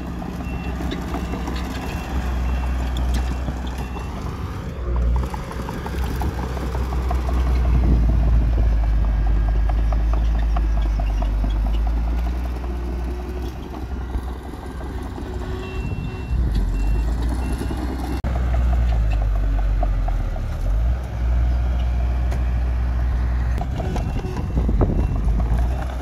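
Heavy diesel earthmoving machinery running, its engine rumble rising and easing with load. A reversing alarm beeps steadily through the first few seconds and again about sixteen seconds in.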